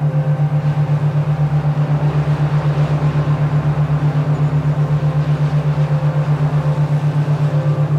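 Low electronic hum throbbing evenly about six times a second, a binaural-beat tone, over faint held higher tones.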